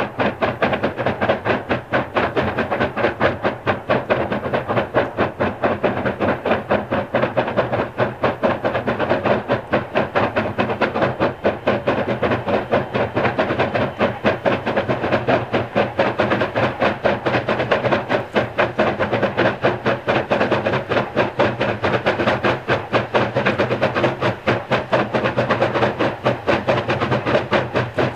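Two China Railways QJ (Qianjin) 2-10-2 steam locomotives double-heading a freight train, their exhausts chuffing in a rapid, steady, unbroken beat as they work the train along.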